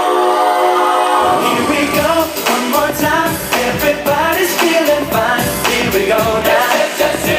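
Pop song with singing played for a dance routine: a held vocal harmony, then about a second in a steady drum beat comes in under the singing.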